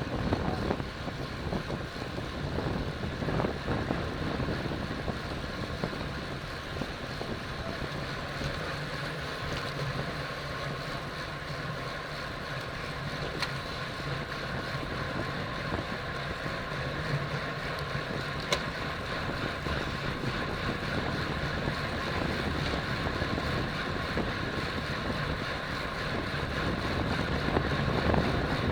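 Steady wind noise buffeting the microphone of a camera on a road bicycle being ridden at speed.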